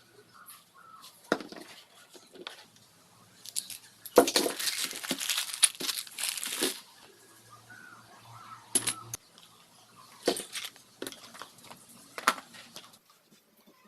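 Hand-work noises on engine parts: scattered sharp clicks and knocks, with a stretch of rough rustling noise starting about four seconds in and lasting nearly three seconds.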